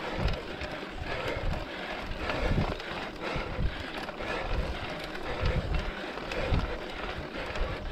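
Mountain bike ridden up a steep, rough dirt climb: tyre and trail noise with the bike rattling, and irregular low thumps of wind buffeting the camera microphone.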